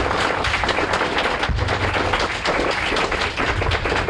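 Audience applause: many people clapping together.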